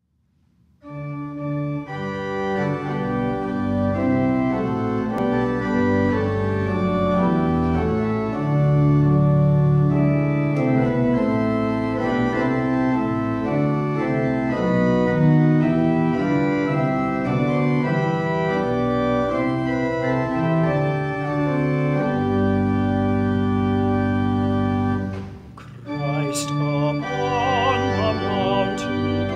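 Pipe organ playing sustained chords over a pedal bass, starting about a second in. It drops away briefly near the end, then sounds again.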